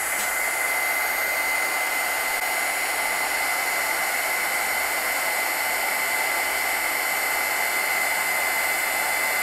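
Close To My Heart embossing heat tool running steadily, its fan blowing hot air with a steady high-pitched whine over the rush, as it melts gold embossing powder on the lettering.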